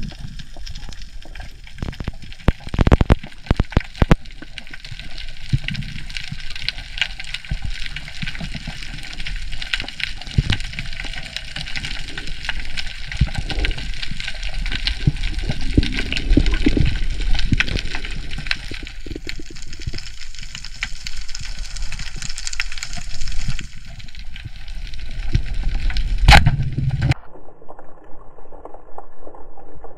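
Water sloshing and gurgling around a dive camera in the sea, with a dense crackle of small clicks. About 27 seconds in the sound cuts to something quieter and duller.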